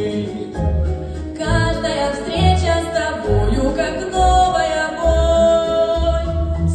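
A solo singer performing a song over an instrumental backing track with a steady, pulsing bass beat. She holds one long high note from about four seconds in.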